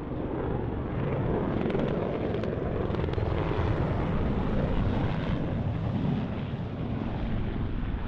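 Military helicopter flying overhead, its rotor and engine giving a steady noise.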